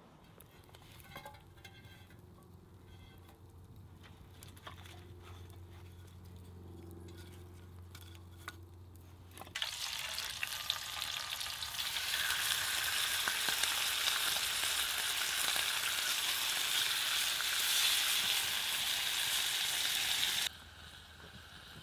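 Bacon sizzling in a frying pan over a campfire. The sizzle starts about halfway through as the rashers are laid in, then grows to a loud, steady hiss, and turns much quieter shortly before the end. Before it there is only a faint, steady low hum.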